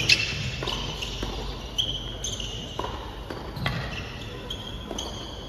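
Tennis doubles rally on a hard court: a series of sharp racket-on-ball hits, the loudest right at the start, with short high squeaks of sneakers on the court between them.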